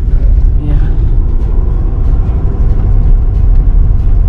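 Pickup truck driving on a rough, patched asphalt road, heard from inside the cab: a loud, steady low rumble of engine and tyres.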